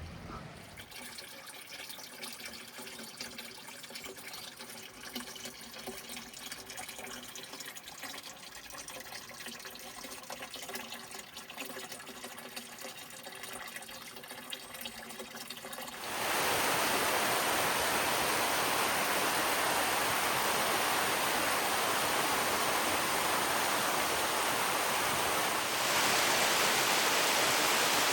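Running water trickling and splashing in a mountain stream. About halfway through it gives way abruptly to the much louder, steady rush of a waterfall.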